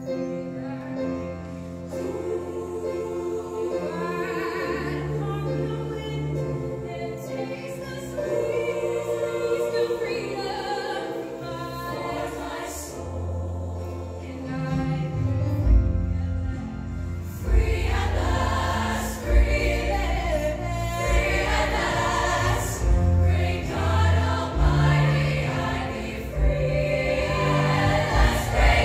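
High school show choir singing with its backing band. About halfway through, bass and drums come in strongly and the music grows louder.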